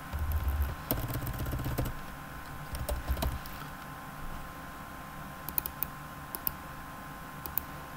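Typing on a computer keyboard. A quick run of keystrokes over a low rumble fills the first two seconds and a short burst comes around three seconds in, then only a few scattered single clicks of keys or mouse.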